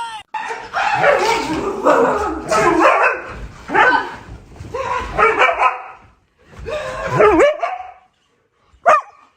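A dog barking and vocalising in a run of loud, ragged calls with rising and falling pitch, then one short, sharp bark near the end.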